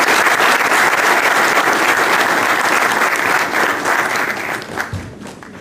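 Audience applauding steadily, with the clapping thinning out and fading near the end.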